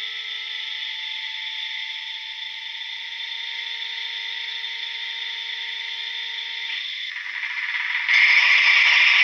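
Sound decoder of an HO-scale SNCF BB67000 model diesel locomotive playing a tinny engine sound through its small speaker, which the presenter takes for a cold-start sequence. It runs steady, changes about seven seconds in, then turns much louder about eight seconds in as the engine comes up.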